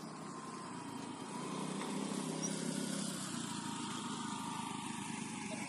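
A small engine running steadily with a low hum and a faint whine, growing a little louder about a second and a half in.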